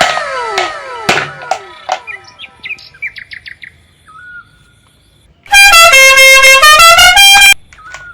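Cartoon-style sound effects: a flurry of clicks and quick falling whistle tones, then, past the middle, a loud two-second electronic jingle of stepped notes that go down and climb back up.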